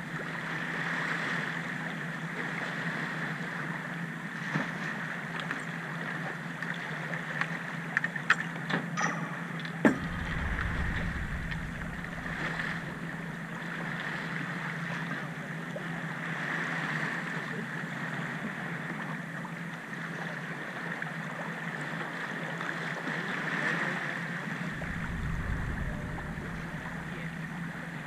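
Steady rush of water along a sailing yacht's hull and wind, swelling and easing every few seconds as the boat runs downwind. A few sharp clicks come about eight to ten seconds in, and there are short low rumbles about ten seconds in and again near twenty-five seconds.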